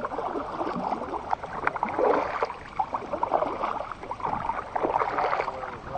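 Water splashing and gurgling around a moving kayak, a run of short, irregular splashes with no steady rhythm.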